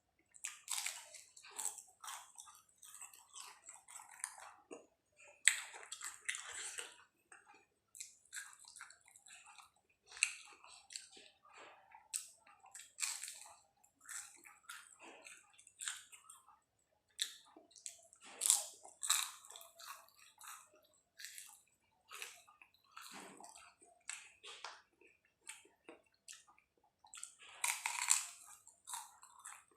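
Someone chewing and biting into pisang keju, a fried banana snack with cheese topping: a string of short, irregular chewing noises, loudest in a cluster near the end.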